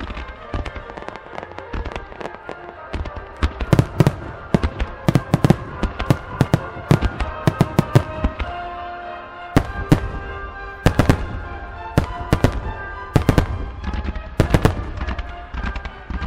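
Firework shells bursting in a music starmine, rapid bangs in dense volleys with a brief lull about nine seconds in. The bangs are much louder than the music playing underneath.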